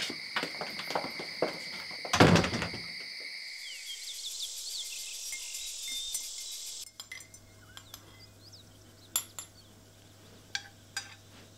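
Crickets trilling steadily under a few clicks and one loud burst, then birds chirping. About seven seconds in it cuts to a quiet room with a low steady hum and a few sharp clinks of a china teacup.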